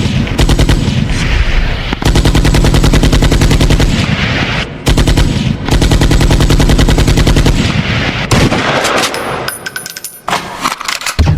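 Very rapid machine-gun-style stutter of deep bass hits, a DJ sound-check effect, coming in runs of a couple of seconds with brief breaks between them.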